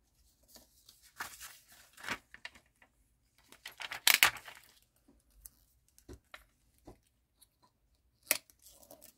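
Paper being handled and torn on a craft mat: short, scattered papery rustles and rips, the loudest about four seconds in and another near the end.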